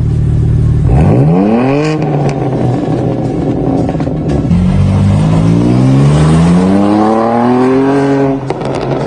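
BMW M4's twin-turbo inline-six through an RES aftermarket quad-tip exhaust. A sharp rev about a second in falls quickly back toward idle, then the car accelerates with the engine pitch climbing steadily for several seconds before it drops near the end.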